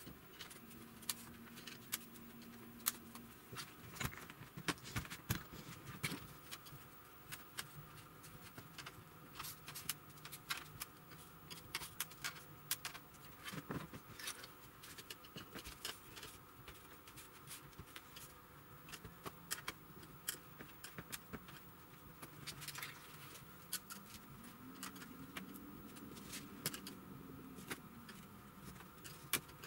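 Quiet, irregular clicks and ticks of the TV's plastic backlight tray and metal panel frame being handled as the tray is pried loose at its plastic clip points.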